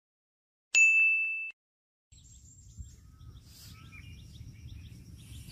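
A single bright ding, a chime sound effect on the title card, striking sharply and fading out within about a second. After that, faint outdoor background with small birds chirping.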